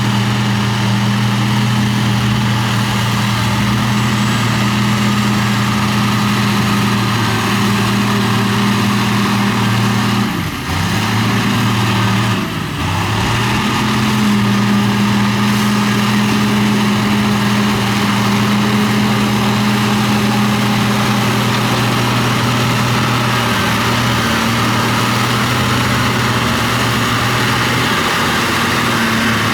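Heavy earthmoving machine's diesel engine running steadily. About ten and twelve seconds in, the engine pitch sags briefly and then recovers.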